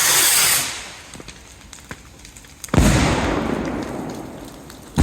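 Firework rocket launching with a loud hiss, then a sudden loud bang nearly three seconds in as it bursts, fading away slowly. Another bang begins right at the end.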